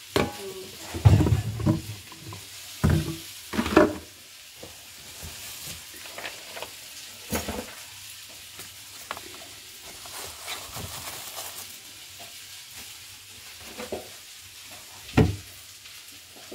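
Jars and containers knocked and set down on a kitchen cupboard shelf as it is cleared out: a cluster of sharp knocks in the first four seconds, another around seven seconds and a loud one about fifteen seconds in, over a steady sizzling hiss.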